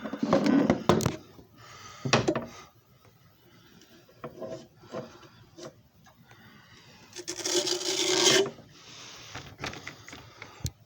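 Rubbing and scraping sounds of hands working objects, in separate bursts. The loudest burst comes a little after seven seconds and has a steady low hum under it for about a second.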